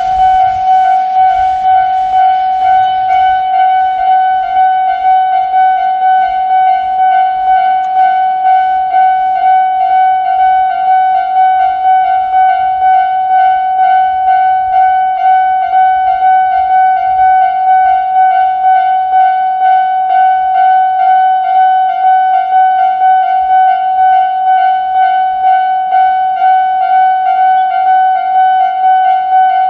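Japanese level crossing's electronic warning alarm sounding, a shrill high ringing tone that repeats in an even, steady rhythm.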